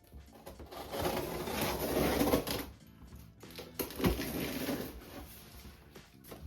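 Cardboard shipping box being handled and opened: a stretch of rough scraping and tearing, then a sharp knock, over background music.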